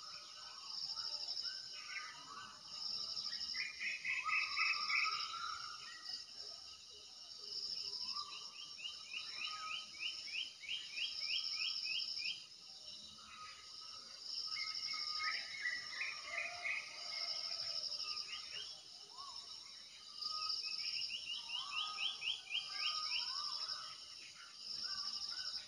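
Outdoor ambience of birds singing in runs of quick repeated notes, over an insect's high buzzing chirp that comes and goes about every two and a half seconds.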